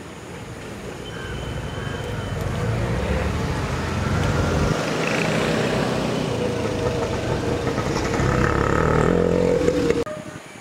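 A motor vehicle's engine running, growing louder over the first few seconds as it comes closer, then steady, and cutting off abruptly near the end.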